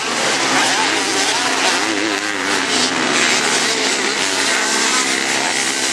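Engines of several racing quads (ATVs) revving hard, their pitch wavering up and down with the throttle as they ride over the jumps and corners.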